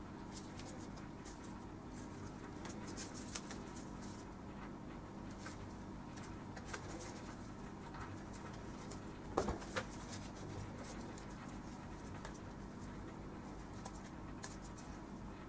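Hand-stitching leather: needles pushed through the leather and thread drawn tight, heard as faint rustling and small clicks over a steady hum, with a few sharper knocks about nine and a half seconds in.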